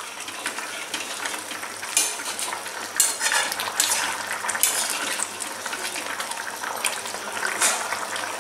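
Metal spatula stirring a simmering chicken and potato curry in a metal kadai, with occasional sharp scrapes and clinks against the pan over a steady bubbling sizzle.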